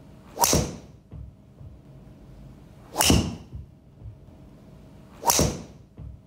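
Three golf driver shots off a tee, each a sharp, ringing crack of the clubface striking the ball, about two and a half seconds apart, alternating between a Callaway Mavrik and a Callaway Epic Flash driver. A much softer knock follows each strike.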